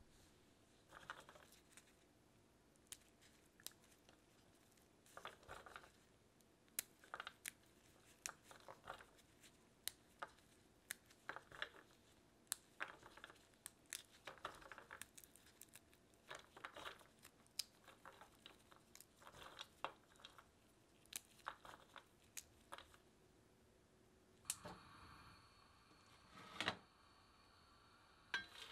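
Walnut halves broken into small pieces by gloved hands in a tray: irregular crackles and snaps of the nut meat, with pieces rustling against the tray. Near the end a denser rattle as the pieces are tipped out of the tray into a pan.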